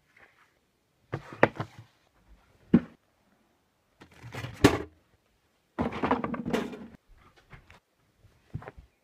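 Clatter and knocks of household objects being picked up, moved and set down during tidying: about five separate bursts, with a sharp knock a little before the middle and a longer rummaging rattle just after it.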